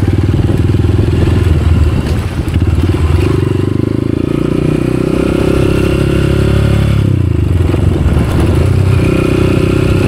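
Small motorcycle engine running at low speed close by, with steady rapid pulsing. Its pitch rises slowly and drops back about seven seconds in.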